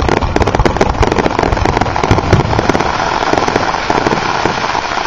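Fireworks display with many aerial shells bursting close together: a loud, dense, continuous crackle of rapid pops and bangs.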